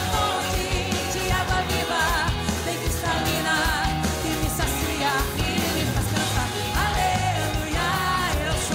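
Live gospel band playing with a woman's lead vocal singing over keyboard, drums and band; the sung lines waver and come and go over a steady, loud band sound.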